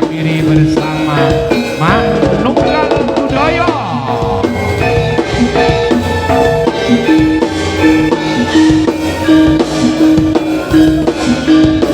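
Javanese jaranan music played live by a gamelan-style ensemble: drums and tuned metal percussion striking repeated notes, with a melody line that slides up and down through the first few seconds.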